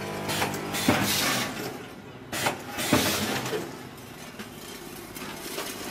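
Vertical form-fill-seal snack packing machine running through its cycle. A steady low hum runs under a sharp knock and a burst of hiss about every two seconds.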